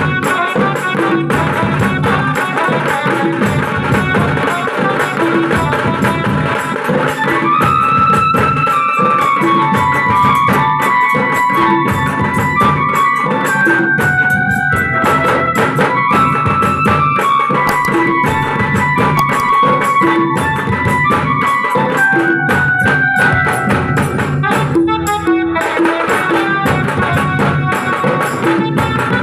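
Tasa band drumming: large stick-beaten bass drums and tasa drums play a fast, driving rhythm. A sustained melody line joins in on top about seven seconds in.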